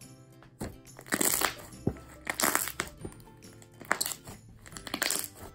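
Thick, fluffy white slime being squeezed and kneaded by hand, giving about five short squishy bursts roughly a second apart. Soft background music plays underneath.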